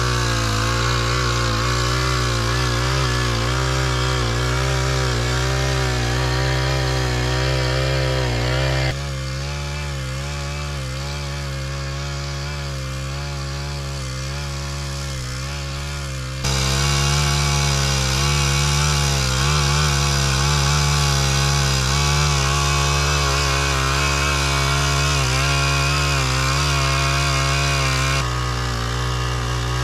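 Small petrol engine running, its speed wavering up and down. Its level drops abruptly about nine seconds in, jumps back up at about sixteen seconds, and drops again near the end.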